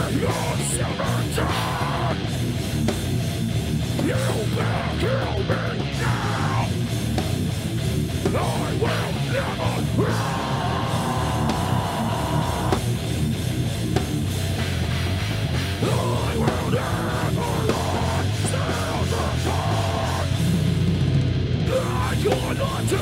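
Heavy metal/hardcore band playing live: distorted electric guitar, bass guitar and drum kit, with a vocalist shouting harsh vocals into a microphone.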